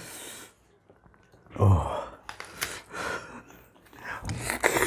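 Eating noises from Rupali mangoes being chewed and sucked straight from the fruit: short irregular wet bursts with breaths between them.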